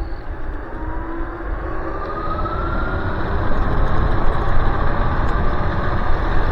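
Electric scooter's dual hub motors whining as it accelerates: the whine rises in pitch over the first few seconds, then holds steady. Under it, wind and road rumble grow louder as the speed builds.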